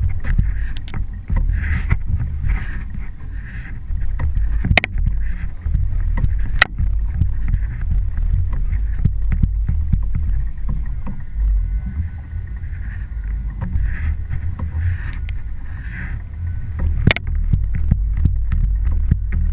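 Steady low rumble of a small outboard-powered fishing boat with wind on the microphone, broken by scattered sharp clicks and knocks, a few of them louder.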